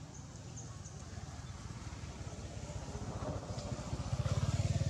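A motor vehicle's engine running with a low, rapid pulsing rumble, getting steadily louder and stepping up sharply about four seconds in.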